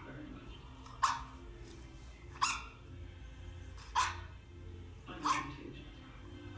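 A dog barking with single sharp barks, four of them evenly spaced about a second and a half apart, over a steady background hum.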